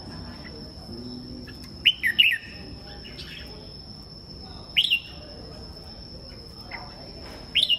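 Caged red-whiskered bulbuls calling in short, sharp chirping phrases, about two seconds in, again near five seconds, and once more at the end. A steady high thin whine and a low murmur of background voices run beneath.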